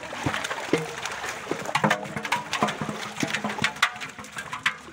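Large fish thrashing in a gathered fishing net in shallow pond water, with irregular splashes and slaps of water.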